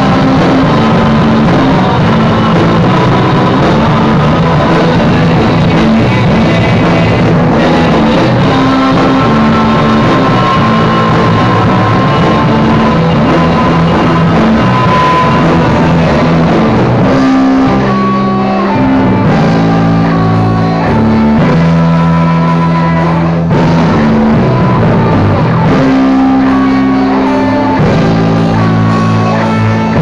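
Instrumental rock passage: a Cort M200 electric guitar playing chords and a lead line along with a full band track.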